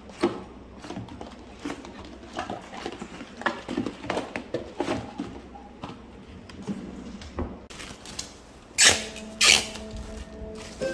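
Cardboard boxes of cling film and baking paper knocking and sliding against each other as a hand rummages in a kitchen drawer, with small irregular clatters and rustles. About nine seconds in come two loud crinkles as plastic cling wrap is pulled out and spread over a glass bowl.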